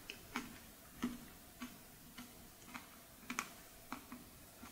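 Close-miked mouth chewing a mouthful of chocolate-chip ice cream with closed lips: faint, soft wet clicks and smacks about twice a second.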